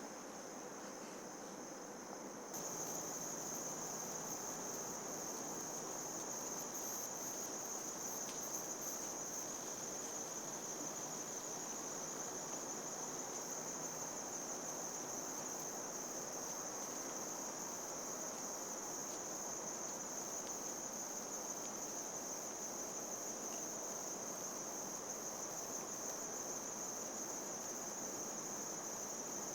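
Insects chirring in a steady, unbroken high-pitched drone over a soft background hiss; it steps up in loudness about two and a half seconds in and then holds steady.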